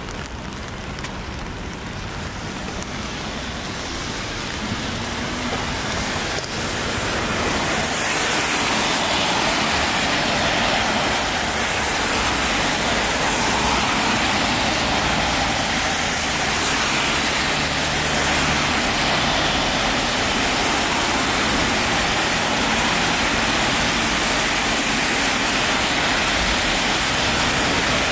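Road traffic on a rain-wet road: a steady hiss of tyres on the wet surface as cars drive past close by. It grows louder over the first several seconds, then holds steady.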